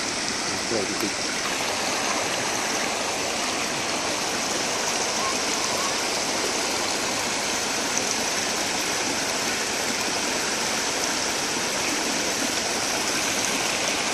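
Creek water rushing steadily where it spills over a log laid across the stream.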